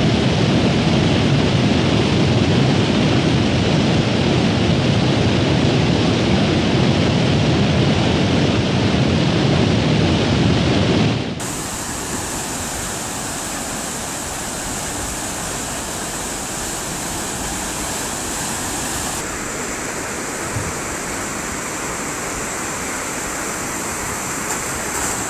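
Flash-flood torrent of muddy water and debris rushing past in a steady, loud wash of noise. About eleven seconds in, the sound cuts abruptly to a thinner, hissier recording of the same rushing flow, with a faint steady high whine.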